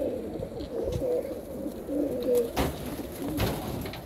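A loft full of domestic pigeons, mostly white homing pigeons, cooing together, many overlapping low wavering coos, with a couple of brief sharp clatters partway through.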